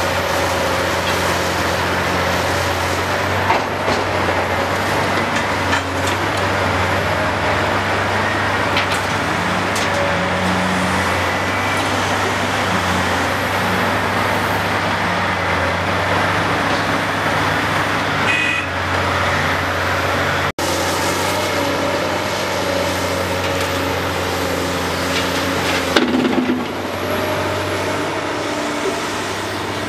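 Caterpillar 385C LME mass excavator's diesel engine running steadily under load while it swings and dumps rock into a dump truck, with a few short knocks and clatters, the loudest a little before the end.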